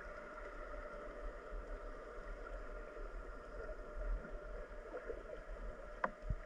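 Muffled water sloshing and gurgling with a faint steady hum underneath, and one sharp click near the end.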